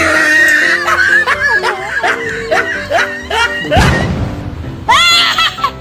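Background music with a woman's high drawn-out cry at the start and a burst of her laughter near the end, with a short rushing noise about four seconds in.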